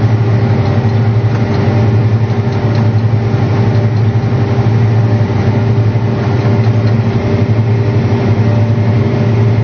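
John Deere 8295R tractor's diesel engine running steadily at constant speed, a low even drone while working the field.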